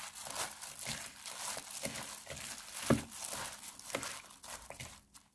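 Plastic-gloved hands tossing seasoned cucumber, onion and garlic chive salad in a bowl: crinkling of the disposable gloves and wet rustle of the dressed vegetables, with a few sharper clicks about three and four seconds in. It cuts off just before the end.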